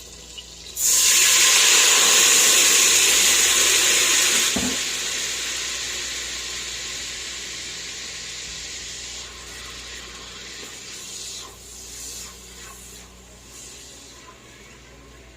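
Liquid poured into a hot pan of browned beef, hissing loudly in a burst of steam as it hits the metal, then dying down over several seconds to a steady sizzle: the pan being deglazed.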